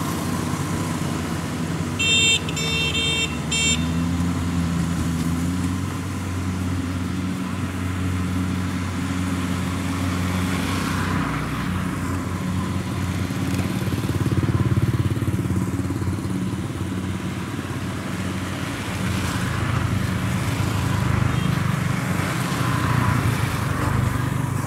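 Kubota DC-70 combine harvester's diesel engine running steadily. About two seconds in, a high electronic beeping sounds in a few quick pulses for under two seconds.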